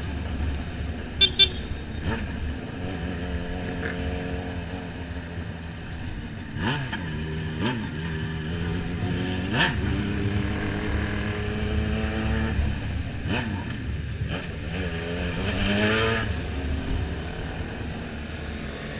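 Motorcycle engine running while riding, the revs rising and falling several times as the bike accelerates and slows. Two short sharp sounds come about a second in.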